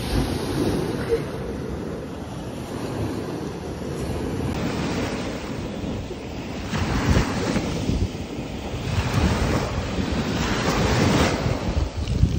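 Surf washing up a sandy beach, with wind buffeting the microphone; the waves swell louder a couple of times in the second half.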